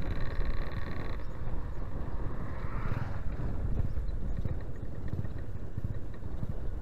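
Motorcycle riding along an open road: the engine running under a heavy low rumble of wind and road noise, with a rising engine whine from about one and a half to three seconds in.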